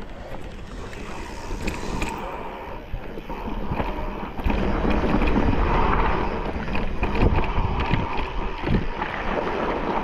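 Mountain bike riding down a rough trail: steady tyre noise over the ground with many knocks and rattles from bumps, and wind on the microphone. It gets louder about halfway through.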